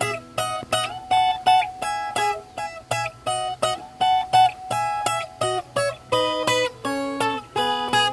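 Viola caipira played in an instrumental passage between sung verses: a melody of single plucked notes and short strums, about two to three a second.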